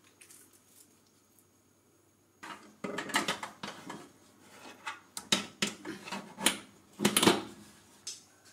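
Metal rotisserie spit and its forks clinking and scraping against a Silvercrest SGBR 1500 D4 mini oven's metal cavity as a skewered whole chicken is fitted into the spit supports. An irregular run of knocks and clicks starts about two seconds in.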